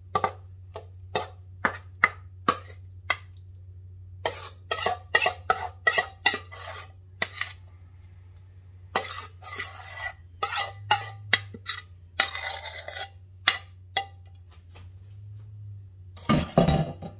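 A metal spoon knocking and scraping against a stainless steel mixing bowl as thick dip is scooped out into a glass baking dish: runs of sharp clinks, about two a second, with stretches of scraping and a louder clatter near the end.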